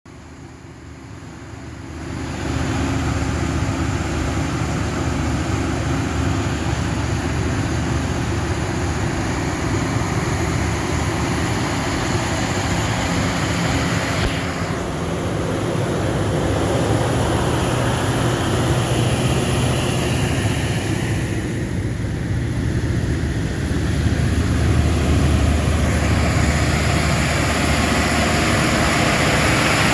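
Caterpillar 3508 V8 diesel generator set running at full load during a load test: a loud, steady, deep engine drone with a wide rush of exhaust and cooling-fan noise. It grows louder over the first two seconds, then holds steady.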